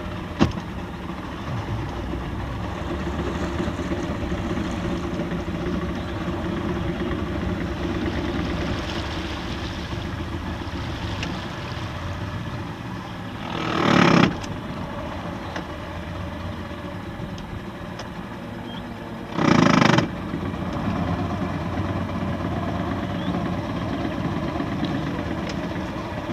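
Outboard motor of a rigid-inflatable boat running steadily. Two brief, loud rushing noises cut in, one about halfway through and another about six seconds later.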